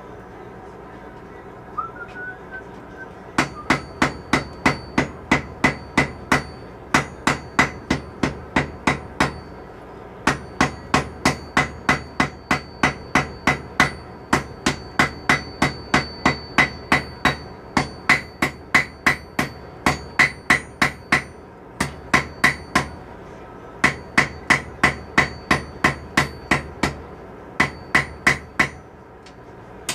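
Hand hammer striking steel on an anvil in steady runs of blows, about two to three a second, broken by short pauses; a high ring carries on between the blows.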